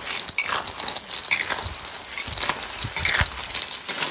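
Metal spatula stirring a wok full of snails in their shells: the shells clatter and rattle against the steel pan and each other in irregular scrapes and clicks, over a light sizzle from the hot pan.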